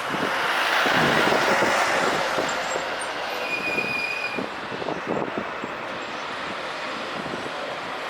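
Airbus A320 jet engines at takeoff power, a broad rushing roar with a crackling edge that is loudest a second or two in and then slowly fades as the airliner moves away.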